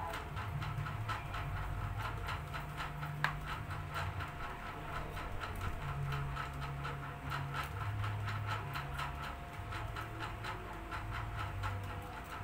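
Food crackling and sizzling in hot oil as it stir-fries, a dense, irregular patter of small pops. A low hum comes and goes underneath.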